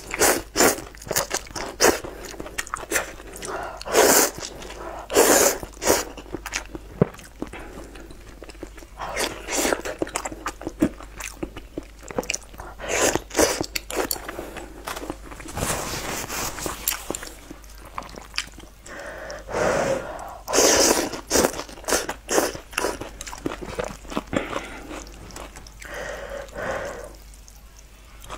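Instant noodles in broth being slurped in several loud, noisy bursts, with wet chewing and mouth clicks in between.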